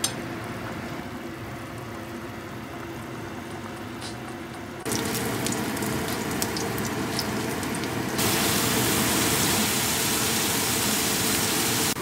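Garlic cloves frying in hot oil in a wok: a sizzle with scattered crackling pops that cuts in suddenly about five seconds in, after a quieter steady hiss, and turns into a louder, even sizzle from about eight seconds.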